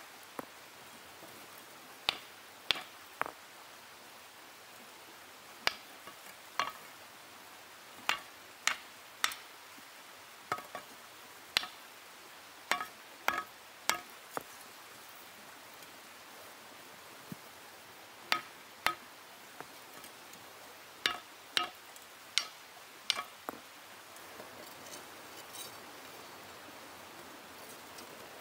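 Hand-held hammer stone striking hot iron axe stock on a stone anvil: sharp clinking blows, mostly in short runs of two or three, with pauses of a few seconds between runs.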